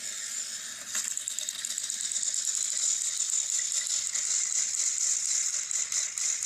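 Small battery-powered toy train motors and gearboxes whirring with a fast, high-pitched rattle as two toy engines push head-on against each other on plastic track. The rattle grows a little louder about a second in.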